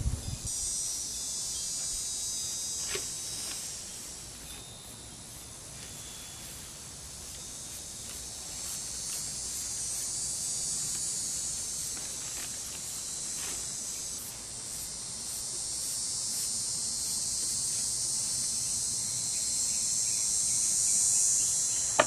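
Outdoor insect chorus: a steady, high-pitched buzzing trill that grows louder toward the end, with a faint click about three seconds in.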